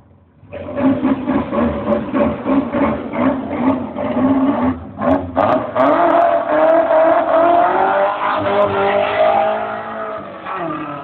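1986 VW Gol 1.6 with a 4-into-1 exhaust header, the engine revved in a run of quick throttle blips, then after a short break held high with the pitch slowly climbing, before it drops off near the end.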